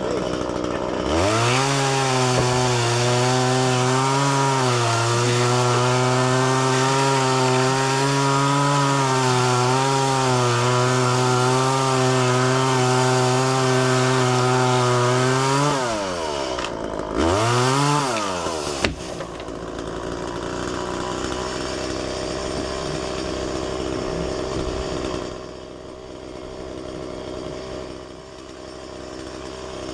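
Two-stroke chainsaw revved to full throttle and held there, cutting for about fifteen seconds with slight dips in pitch, then let off, revved once more briefly, and dropped back to a lower, steadier running sound.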